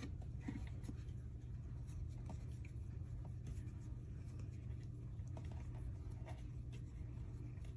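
Fingers scratching a tabby cat's head and cheeks: soft, scattered scratching and rustling of fur over a steady low hum.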